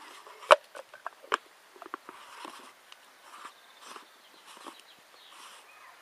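Hard plastic casing of an S-Thunder airsoft water landmine being handled and twisted: two sharp clicks, about half a second and a second and a half in, then a run of short scraping rasps, about one every half to three-quarters of a second, as the threaded top is turned.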